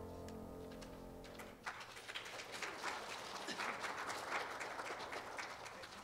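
The anthem's last held chord fades away, and about a second and a half in the congregation breaks into applause, a few seconds of hand-clapping.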